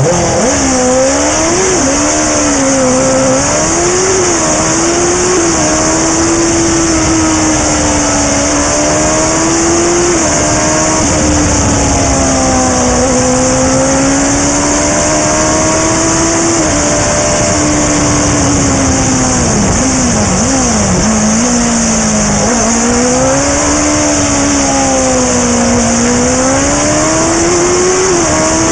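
OMS 2000M single-seater hillclimb car's engine under full racing load, heard onboard. Its pitch climbs with the revs to about 11,000 rpm and drops back at each gear change. Around twenty seconds in it rises and falls quickly several times as the car slows and changes down, then pulls hard again. A steady high hiss runs over it.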